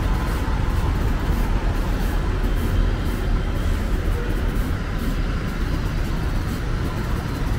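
Steady traffic noise of a busy city street: passing cars and buses making a constant low rumble.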